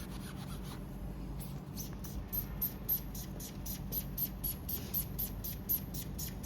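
Acetone-soaked foam sponge rubbed back and forth on the LCD panel's PCB edge, cleaning off old glue: quick regular strokes, about four a second, each with a faint high squeak. The strokes start about a second and a half in.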